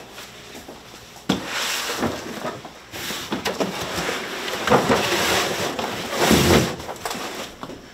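Cardboard boxes of canned food being handled and shifted: irregular rustling and scraping with several knocks, loudest twice in the second half.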